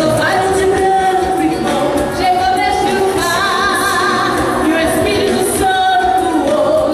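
A woman singing a Portuguese gospel praise song into a handheld microphone over loudspeakers, holding long notes of about a second each.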